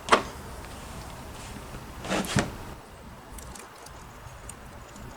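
Planer board parts and hardware being handled during assembly: a sharp clack right at the start, two more knocks a little over two seconds in, then faint light ticks.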